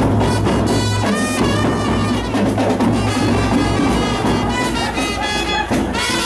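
Live brass band, with trumpets and a clarinet, playing a lively melody over a steady drumbeat.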